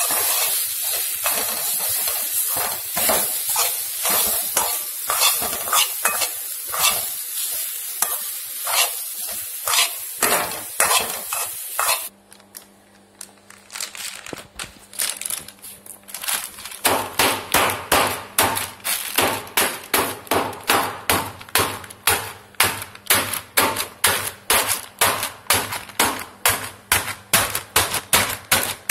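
Grated coconut being stirred in a hot pan, sizzling under quick scraping strokes of the spatula. About twelve seconds in the sound cuts to a quieter stretch with a low hum. Then a lump of jaggery is crushed inside a plastic sheet with steady knocks at about two a second.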